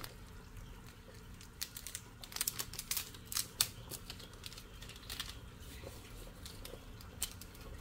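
Scattered light clicks and taps of kitchen utensils on cookware, irregular and closely bunched for a stretch, with one sharper knock about three and a half seconds in.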